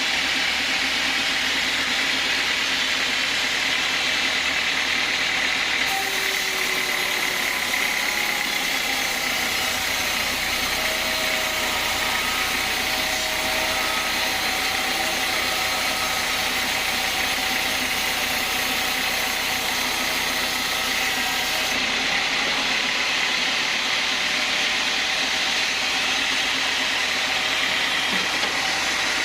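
Sawmill band saw running steadily. From about six seconds in to about twenty-two seconds the hiss turns brighter, then falls back.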